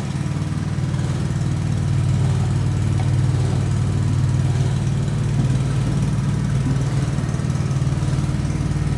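Small Honda GX single-cylinder four-stroke petrol engine running steadily under load, driving a coconut-milk press through its reduction gearbox while milk is being pressed out.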